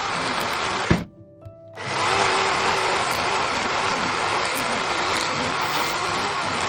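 Greenworks cordless electric chainsaw running under load, cutting firewood. It stops with a sharp click about a second in, is quiet for under a second, then runs again steadily through the cut.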